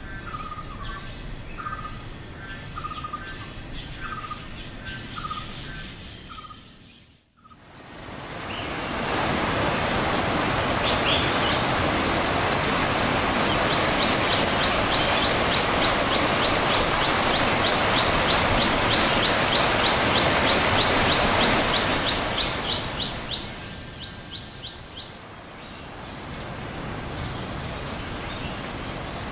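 An insect chirping in a repeating rhythm over quiet forest ambience, cut off about seven seconds in by the steady rush of a small stream cascading down a rock chute. Over the water a fast run of high ticks repeats, about four a second, for roughly ten seconds. Near the end the water fades into quieter forest ambience.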